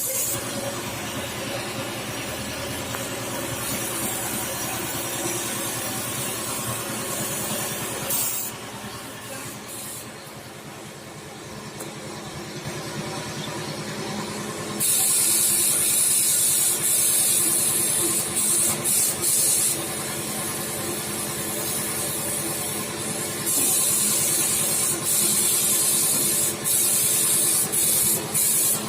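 Paint spray gun hissing in bursts as the trigger is pulled and released, over a steady motor hum. The spray runs longest and loudest from about halfway through, broken by short gaps.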